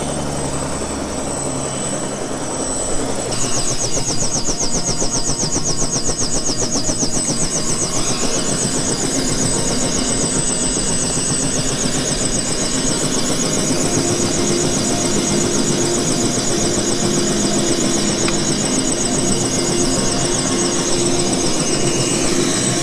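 Small helicopter's engine and two-blade rotor running steadily on the ground. A fast, even, high pulsing joins about three seconds in.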